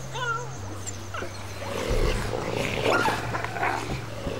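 Wolf pups whining and yelping while feeding on a carcass, with a rougher stretch of growling from about two seconds in.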